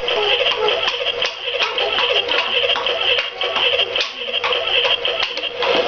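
A child's electronic toy car playing its music-like sound effects, with many sharp clicks through it.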